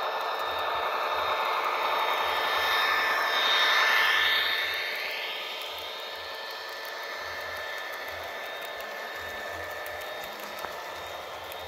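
HO scale model freight train running past on the layout track: the SD70M model locomotive and its wheels are loudest about four seconds in as it passes. After that comes the quieter, steady rolling of the freight cars over the rails, with a single click near the end.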